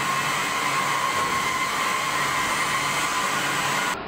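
Steady forge-shop machine noise: an even rush like moving air, with a steady high whine running through it. It cuts off suddenly near the end.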